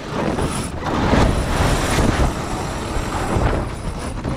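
Wind rushing over a mast-mounted microphone, with the sails shaking, as the X-99 tacks. The rush swells about a second in, then eases.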